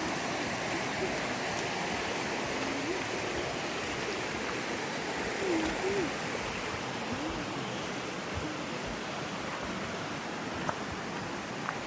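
Steady rushing of a mountain river flowing beside the trail. A couple of light clicks come near the end.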